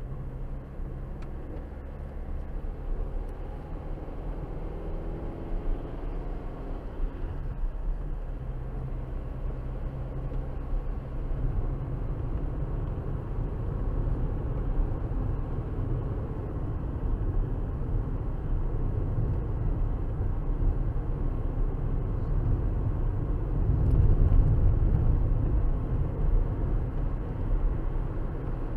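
Car driving, steady engine and tyre road rumble heard from inside the cabin, growing louder in the second half.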